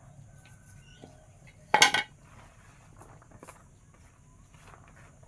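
A short, loud metal clatter about two seconds in, as the boti's curved iron blade is put down. Faint clicks and rustles follow as cut vegetable slices are handled on a woven bamboo tray.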